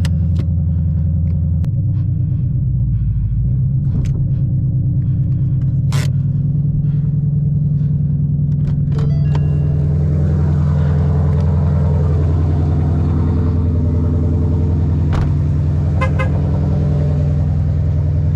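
Ford Mustang's engine idling steadily just after a cold start, left running to warm the oil before an oil change. A few sharp clicks sound over it, one about six seconds in and two more near the end.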